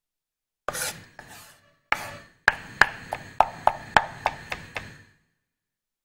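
Kitchen knife chopping garlic on a wooden cutting board: a couple of separate strokes, then a run of about nine quick chops, three or four a second, ending about five seconds in.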